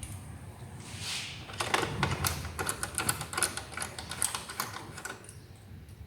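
Ratchet clicking in quick, irregular runs as the Allen bolts holding a plastic engine cover are nipped up; the clicking tapers off near the end.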